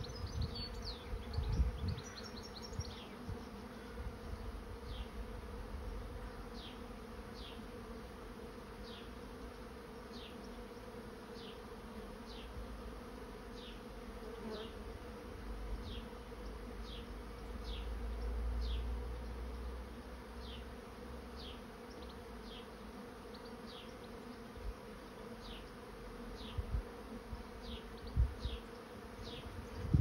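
A swarm of honey bees buzzing: a steady hum from many bees flying around the clustered swarm as it moves into a swarm trap.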